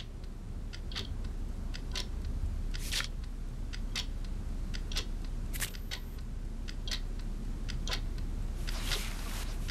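A clock ticking about once a second, each tick followed by a fainter tock, over a steady low hum. A brief rush of noise comes near the end.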